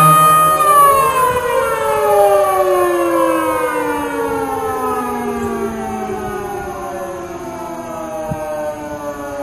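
Federal Signal Model 2 and Model 5 mechanical sirens holding a steady pitch, then winding down together from about a second in. Their several tones slide slowly lower and fade, while one tone briefly climbs before falling with the rest.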